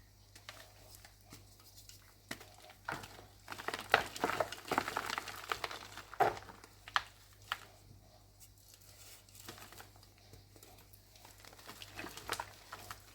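Reformed (pasted) gym chalk blocks being crushed and crumbled: irregular crunching and crackling, busiest and loudest a few seconds in, then sparser.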